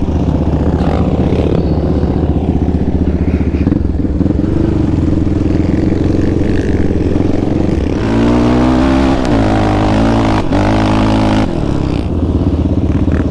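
Yamaha Raptor 700R sport quad's single-cylinder four-stroke engine running under load while riding across sand. The throttle opens up harder about two-thirds of the way through, holding a higher, louder note for a few seconds before easing back.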